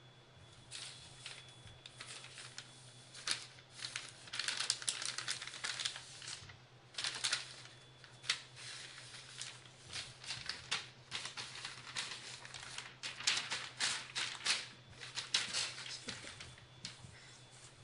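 Newspaper rustling and crinkling in quick, irregular bursts as a kitten scrabbles over and under the pages and a hand shifts the paper. The crackling starts about a second in and dies away near the end.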